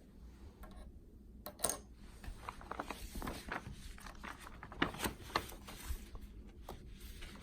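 Packaging being opened and handled by hand: rustling and scraping with scattered sharp clicks and taps, the sharpest about a second and a half in.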